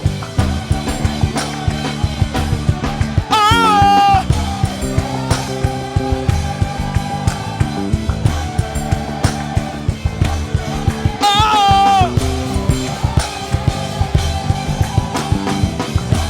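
Live gospel band music: a drum kit keeps a steady beat under sustained chords. A loud held lead note with vibrato rises over it twice, about three seconds in and again about eleven seconds in.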